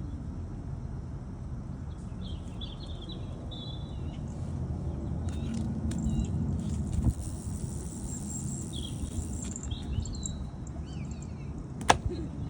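Small birds chirping in short bursts over a low, steady background rumble, with a higher steady hiss for a few seconds in the middle. A single sharp click near the end.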